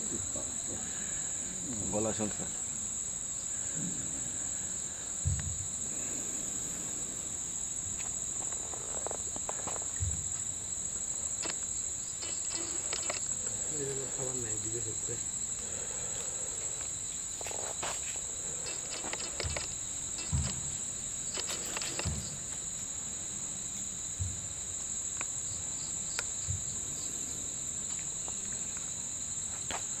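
Steady high-pitched drone of insects with a fainter, lower second tone beneath it, broken by a few short soft knocks and rustles.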